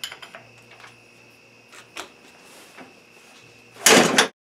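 A 150cc dirt bike engine's kickstarter being worked with a metal bar: a few scattered clicks and knocks, and the engine does not fire. Near the end a short, loud rough burst close by, cut off suddenly.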